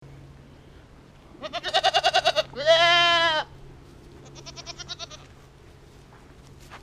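Goats bleating: a quavering bleat about a second and a half in, then straight after it a loud, longer bleat, and a fainter quavering bleat about four seconds in.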